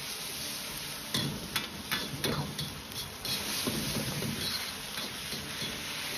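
Pork liver and peppers sizzling in a hot wok while being stir-fried over high heat, with a metal wok spatula scraping and knocking against the pan in a run of quick strokes between about one and four seconds in.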